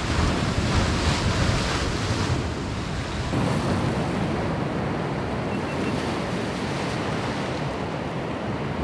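Ocean surf breaking and washing over coastal rocks, with wind on the microphone. About three seconds in the hiss turns duller.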